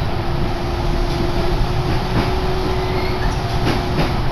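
Kintetsu Yunoyama Line commuter train running between stations, heard from inside the car: a steady rumble with a held hum and a few rail-joint clicks near the middle and end.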